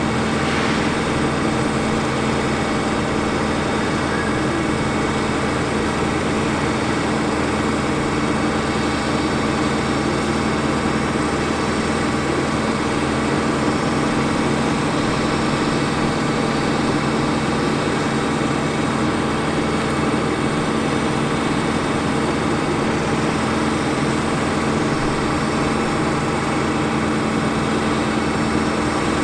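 A 6.4L Power Stroke V8 diesel engine in a Ford F450 bucket truck running steadily at idle, driving the hydraulics that work the articulating bucket boom.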